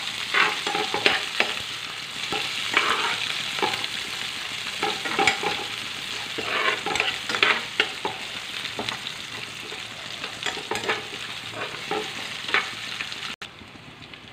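Sliced onions sizzling in hot oil in a kadai, with mustard seeds, cumin and dried red chillies, as they soften. A spatula stirs and scrapes through them every second or so. The sizzle drops off suddenly near the end.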